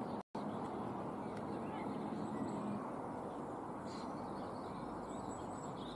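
Steady outdoor background hiss with a few faint bird chirps. It cuts out briefly just after the start, at an edit.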